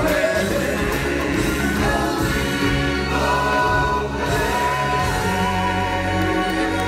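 Live stage-show music: a choir of voices singing long held, wavering notes over a steady bass line.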